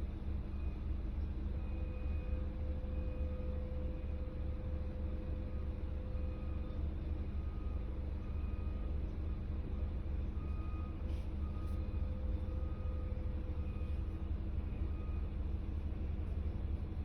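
Steady low rumble of a running vehicle, with faint short higher tones coming and going.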